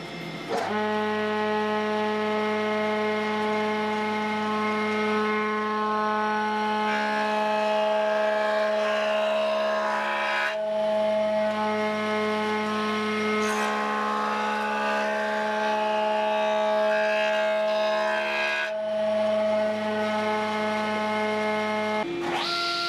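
Thickness planer running with a steady, pitched whine that dips briefly about ten seconds in and again near nineteen seconds. Near the end it cuts abruptly to a hissier table-saw sound.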